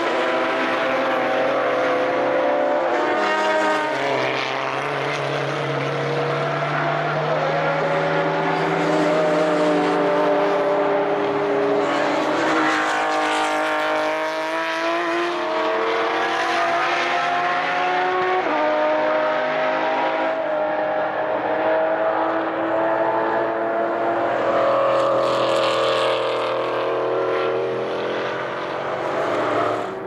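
Engines of several racing cars passing one after another through a corner, each engine's pitch rising and falling as the cars slow and accelerate, with engine sound present throughout.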